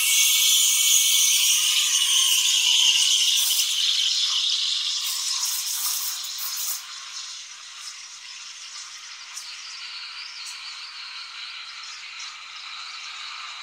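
Steam wand of a C.M.A. Astoria Compact CKXE espresso machine frothing milk in a stainless-steel pitcher: a loud hiss that drops about seven seconds in to a quieter, steadier hiss with a faint whistling tone.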